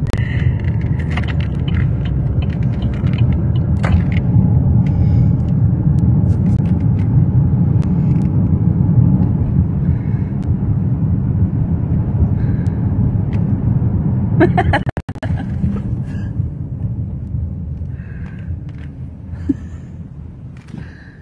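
Low, steady rumble of a car driving, road and wind noise heard inside the cabin, with a brief dropout about fifteen seconds in and the rumble growing quieter toward the end.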